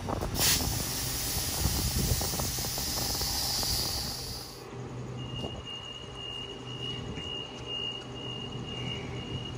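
A loud hiss of compressed air venting from a standing electric train's air system, starting suddenly about half a second in and cutting off abruptly about four seconds later. A steady high electronic tone follows for about four seconds over the train's low hum.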